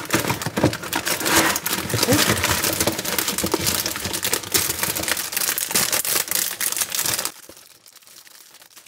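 Cookie packaging being opened: a cardboard box and the cellophane-wrapped plastic tray inside crinkling and crackling as they are handled. The sound stops abruptly about seven seconds in.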